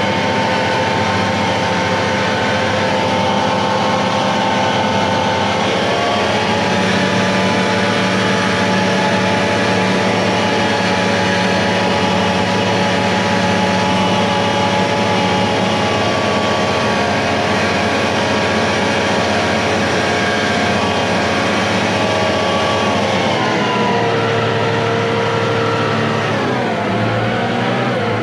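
Tractor diesel engine running steadily, heard from inside the cab. Its speed drops slightly about six seconds in, then falls and rises again near the end.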